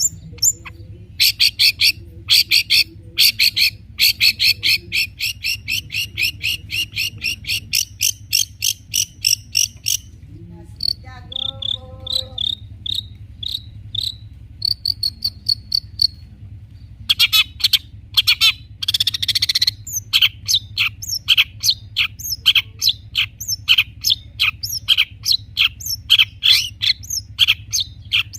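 Long-tailed shrike (cendet) singing full song with mimicked phrases: long runs of sharp, fast repeated high notes, about four a second, broken by a short lower-pitched series of notes and, about two-thirds of the way through, a harsh rasping call.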